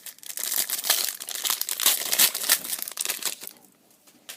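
Foil trading-card pack wrapper crinkling as it is torn open and handled, a dense run of crackling for about three seconds that stops near the end.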